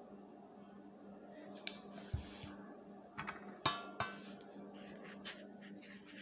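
Kitchen handling noises: about half a dozen sharp clinks and knocks of dishes and utensils, the loudest near the middle, over a faint steady hum.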